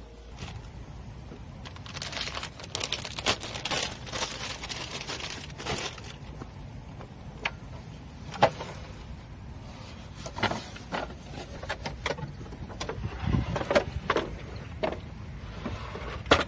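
Packing-up handling noises: rustling and scattered light clicks, with a sharp knock about eight seconds in and another near the end.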